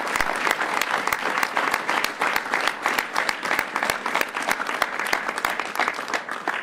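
A roomful of people applauding, with dense, sustained clapping.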